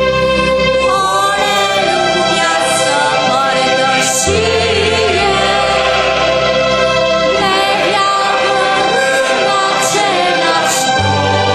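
A choir singing a slow hymn, with held low notes underneath that change a few times.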